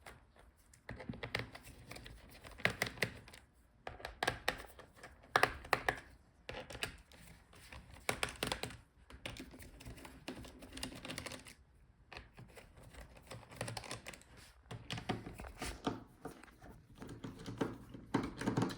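Irregular small clicks, taps and scrapes of hands and a small tool working on a laptop's plastic bottom case, with a few louder knocks.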